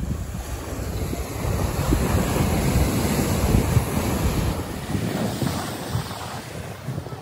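Ocean surf breaking and washing up a sandy beach, with wind buffeting the microphone. About five seconds in, the low rumble drops away and the sound gets quieter.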